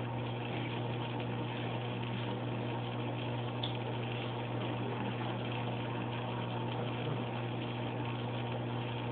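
Aquarium pump running: a steady low hum over a constant hiss of moving water.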